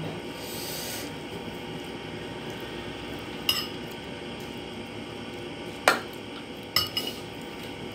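Metal spoon clinking and scraping against a ceramic plate during a meal: a few sharp clinks, the loudest about six seconds in, then two quick ones close together.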